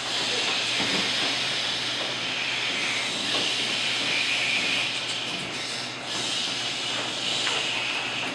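A group of improv performers making a sustained hissing, whooshing noise with their mouths as a sound effect, swelling and fading in several waves.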